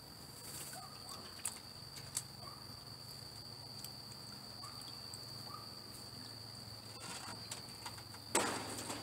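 A racing pigeon held down in a bucket of water for a force bath: light water sloshing and a couple of sharp taps, then a splash near the end.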